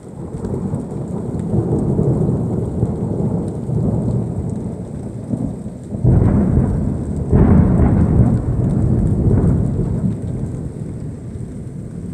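Thunder after a lightning flash: a long low rumble that builds over the first couple of seconds, then two sharper, louder peals about six and seven and a half seconds in, rolling on afterwards. Rain is falling throughout.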